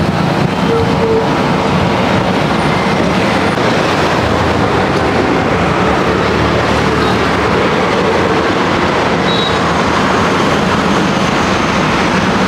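Steady road traffic noise: a continuous, even rumble and hiss of passing vehicles, with no single event standing out.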